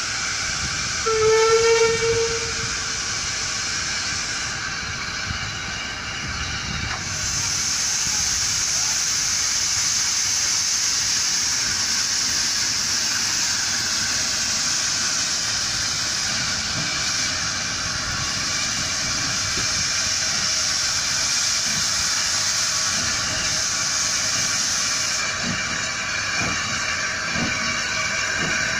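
Steam whistle of an ex-LNER J94 (Austerity 0-6-0 saddle tank) locomotive: one short blast about a second in, as it departs. A steady hiss of steam follows while the engine moves slowly off with its train.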